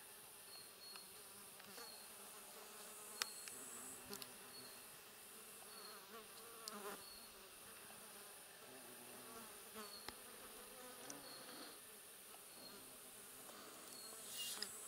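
Faint insect buzzing in quiet birch woodland, with a short high note repeating about once a second and a few soft clicks.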